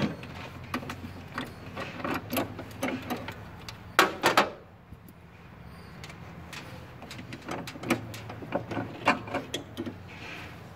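Metal clicks and knocks of a wrench and parts as a brake master cylinder is unbolted and lifted off the brake booster, in uneven clusters with the loudest knocks about four seconds in, over a steady low hum.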